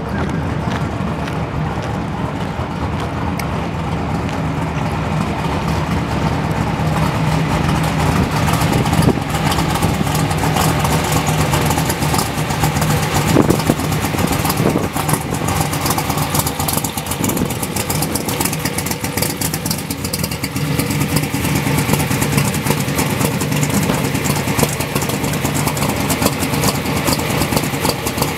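Twin-turbocharged, alcohol-injected Pro Mod Camaro engine idling steadily, a little louder from about eight seconds in.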